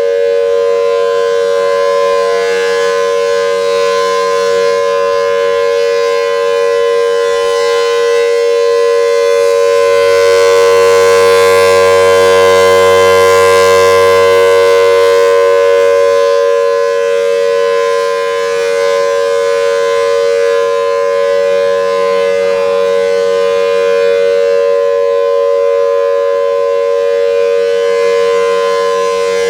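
Federal Signal Thunderbolt outdoor warning siren sounding a steady multi-tone signal during a siren test. It swells louder for several seconds about ten seconds in, then settles back.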